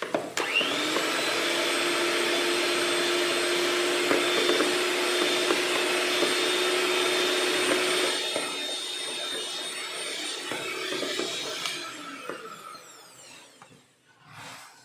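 Electric mixer beating eggs with vanilla essence for cake batter. The motor starts abruptly with a quick rising whine and runs steadily. It drops in level about eight seconds in, then winds down and stops near the end.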